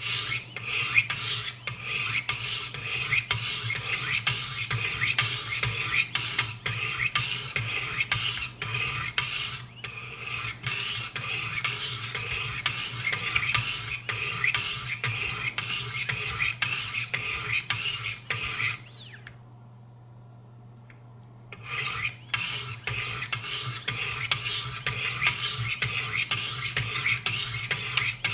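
Wicked Edge sharpener's coarse diamond stones rasping along a steel knife edge in quick repeated strokes, raising a burr at the lowest-grit stage. The strokes pause for a few seconds about two-thirds of the way through, then resume.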